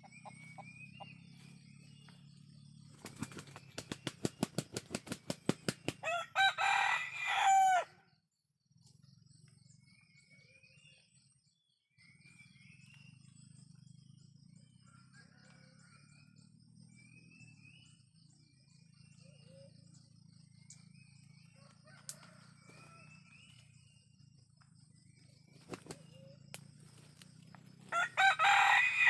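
Kampung (Indonesian native) rooster beating its wings in a quick run of flaps that grow louder, then crowing, about six seconds in; it crows again near the end. Faint high chirps are heard in between.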